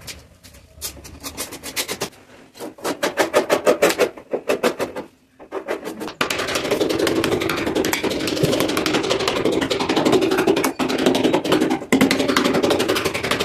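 Compact laminate trimmer (trim router) cutting along the edge of a laminate sheet on plywood. It runs in short stop-start spells at first, then steadily from about six seconds in.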